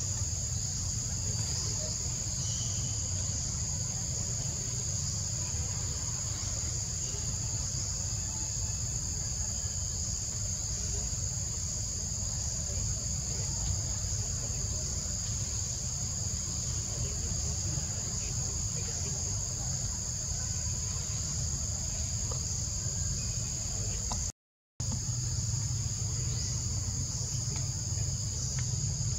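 Steady, shrill chorus of insects holding two constant high pitches, over a low rumble. The sound cuts out completely for about half a second near the end.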